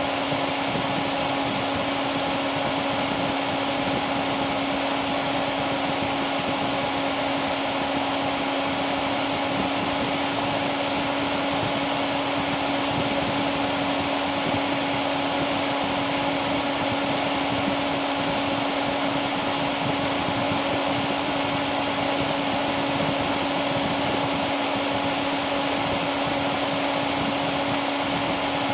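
Dell Dimension E521's BTX CPU cooling fan running fast under 100% CPU load, though not at its top speed: a steady rushing of air with a low hum tone over it.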